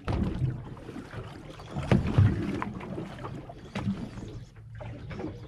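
Sounds aboard a fishing boat at sea: a steady low hum with wind and water noise, broken by a few sharp knocks about two seconds apart.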